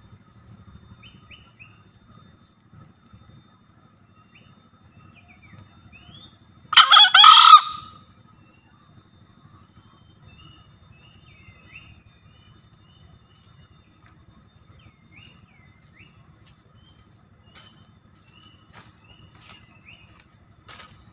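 Green junglefowl crowing once, a single short crow about a second long, some seven seconds in; faint chirps of small forest birds sound now and then.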